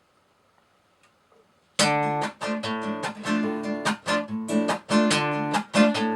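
Near silence, then about two seconds in an acoustic guitar starts strumming chords in a steady rhythm, accompanying a song.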